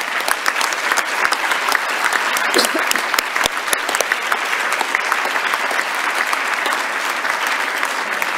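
A large audience clapping: steady applause.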